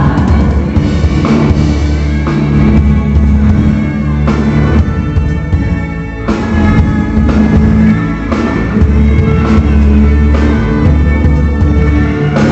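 Worship band playing an instrumental passage of a song, with electric guitar, bass and drum kit and no singing.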